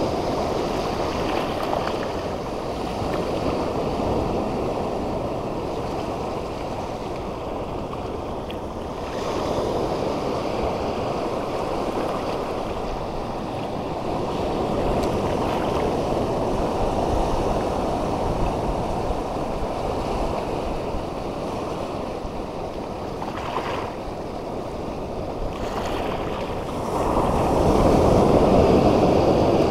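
Ocean surf breaking and washing over a shallow rock reef, a steady wash that surges louder every several seconds and is loudest near the end, with wind buffeting the microphone.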